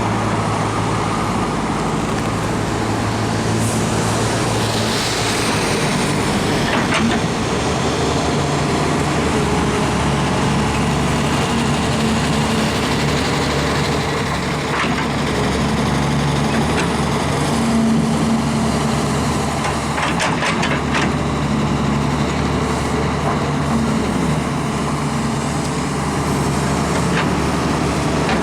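Doosan DX140WV wheeled excavator's diesel engine running steadily; its engine note shifts about seven seconds in. A few sharp clicks and knocks are heard over it.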